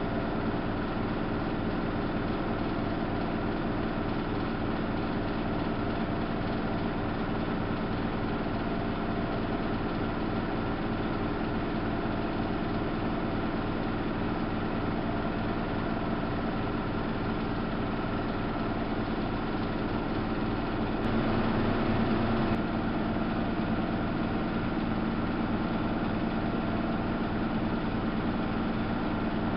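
Samsung WF71284 front-loading washing machine running with a steady motor hum. About two-thirds of the way through, the sound briefly gets a little louder and shifts, then settles back.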